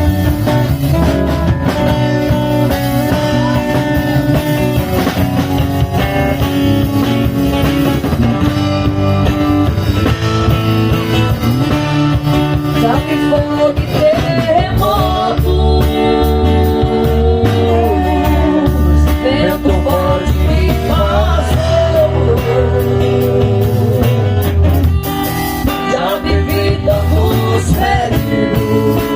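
Gospel band playing music with guitar prominent; a melody line bends and slides in pitch through the middle.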